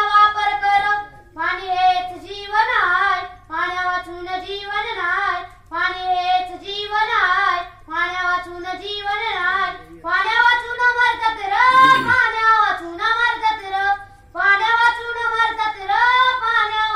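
A boy singing solo into a microphone, in short phrases with brief breaths between them. A faint steady low hum runs underneath.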